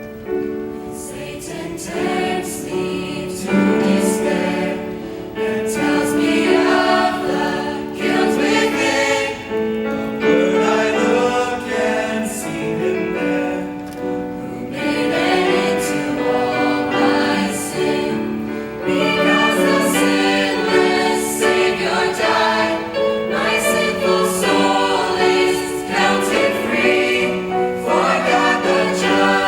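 Church choir singing a hymn, many voices in sustained harmony.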